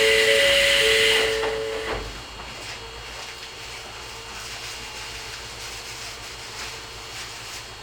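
A loud hiss of compressed air released from an Izuhakone Railway 3000-series electric train, with two steady tones sounding under it. It fades out about two seconds in, leaving the low steady hum of the standing train.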